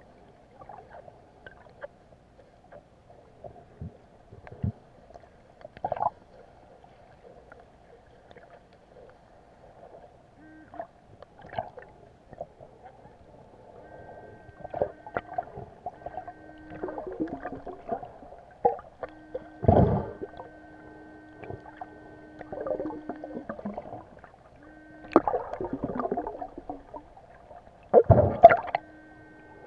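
Muffled underwater sound heard through a waterproof camera housing: water gurgling and swishing as a swimmer moves a metal detector over the seabed, with scattered knocks and louder gurgling rushes in the second half. A steady hum comes and goes from about halfway through.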